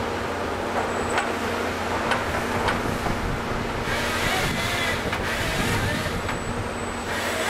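Volvo EC210 excavator's diesel engine and hydraulics running steadily under load while a LogMax 7000XT harvester head works eucalyptus, with a few sharp knocks in the first three seconds.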